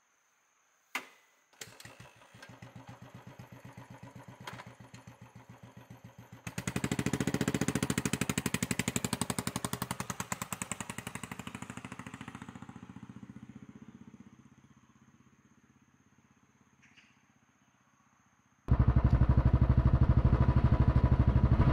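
Royal Enfield Classic 500 single-cylinder motorcycle engine started and idling with an even thump, then pulling away and fading into the distance. Near the end it is suddenly much louder and close, running under way.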